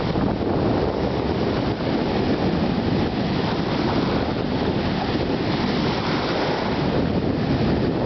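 Small sea waves breaking and washing through sandy shallows, a steady rush of surf, with wind rumbling on the microphone.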